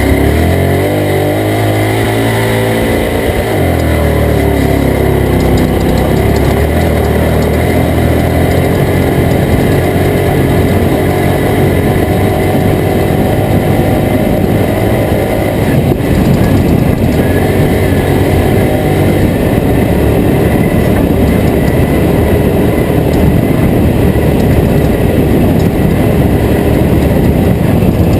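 Toyota Tacoma off-road race truck driving hard. The engine pitch falls over the first few seconds, then settles into a steady, loud mix of engine and rattling, jarring noise.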